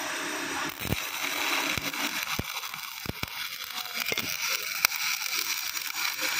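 Shielded metal arc (stick) welding with an E6013 electrode on a carbon-steel pipe-to-flange joint: the arc crackles and sizzles steadily, broken by scattered sharp pops and snaps.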